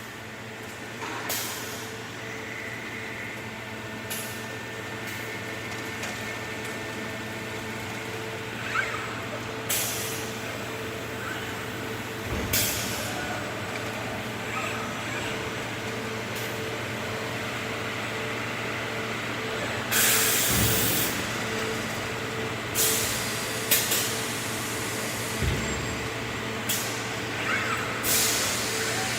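Automated CNC machine running with a steady hum, broken by short hisses of compressed air every few seconds, as from pneumatic actuators, with one longer hiss of about a second near two-thirds of the way through.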